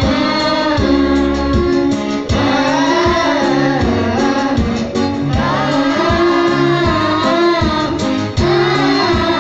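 A group of children singing together through microphones over loud amplified instrumental backing with a bass line.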